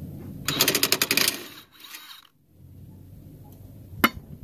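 Cordless impact wrench hammering on a front strut bolt in a fast, even rattle for about a second, then spinning down; one sharp knock near the end.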